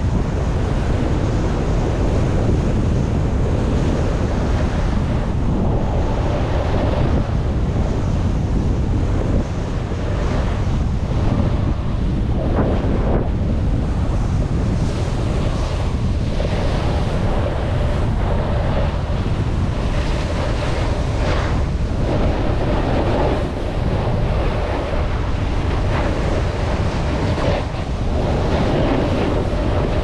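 Wind buffeting the action camera's microphone during a fast downhill ride on a ski slope, a steady heavy rumble that surges unevenly, with the hiss and scrape of sliding over packed snow.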